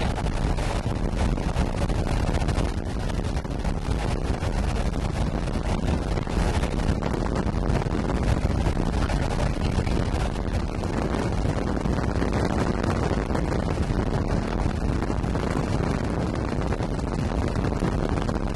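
Wind blowing hard across the microphone: a steady low rumble of buffeting with no distinct events.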